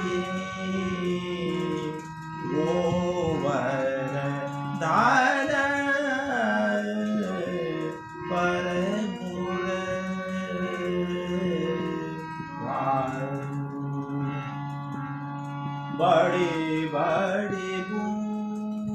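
Devotional music: a voice singing short phrases over a steady held drone accompaniment.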